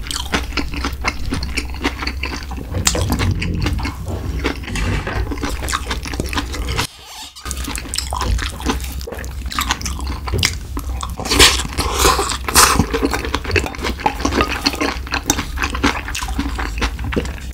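Close-miked chewing and wet mouth sounds of a person eating spicy stir-fried pork and mustard-leaf kimchi, with a dense run of small clicks and crackles and a brief pause about seven seconds in. Wooden chopsticks tap on a metal rice bowl now and then.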